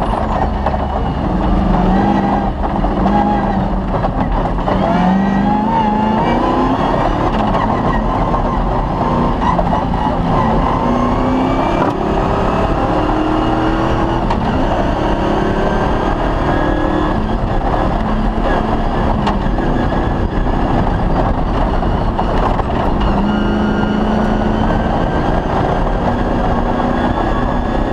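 Cross-country rally car's engine running hard on a special stage, its pitch climbing and dropping again and again as the driver accelerates, shifts and lifts. A steady rush of tyre and road noise runs underneath.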